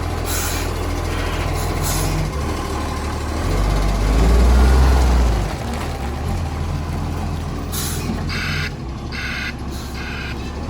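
Recycling garbage truck's diesel engine running, with an exhaust leak, and surging louder for a couple of seconds mid-way. There are short air hisses near the start, and from near the end a reversing beeper sounds repeatedly.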